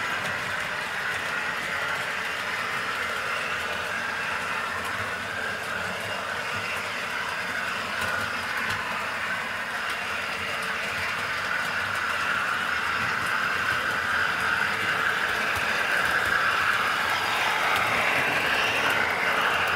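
Dapol Class 52 Western model diesel locomotive running steadily along the track hauling coaches, growing louder in the last few seconds as it passes close by.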